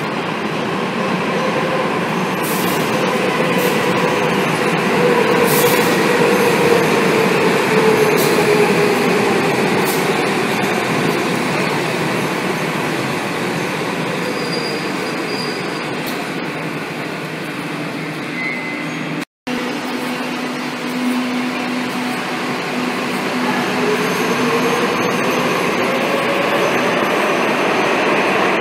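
Madrid Metro Serie 5000 electric train running into and through an underground station: steady wheel and motor noise, with a motor whine that falls in pitch as it slows along the platform. After a brief break, a second run with a motor whine rising in pitch near the end.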